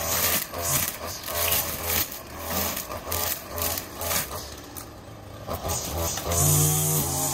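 Gas string trimmer running with its throttle rising and easing off about twice a second while the line cuts grass and scrapes along wood and debris.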